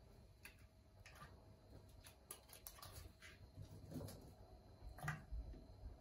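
Quiet scattered light taps and soft thumps of pieces of red onion and garlic being dropped into a rice cooker's inner pot, over near-silent room tone.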